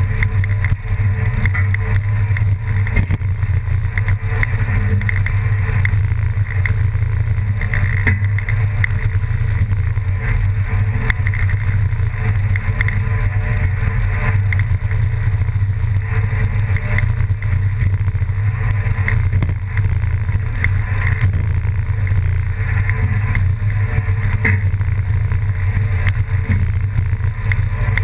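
An engine running steadily, a loud low drone that holds an even level throughout.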